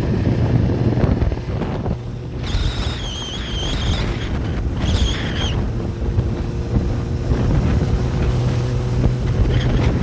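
A steady engine rumble with wind on the microphone, broken by two wavering high-pitched squeals, one about two and a half seconds in lasting over a second and a shorter one about five seconds in.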